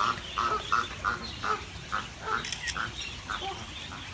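A duck quacking over and over, short calls about two a second, stopping shortly before the end.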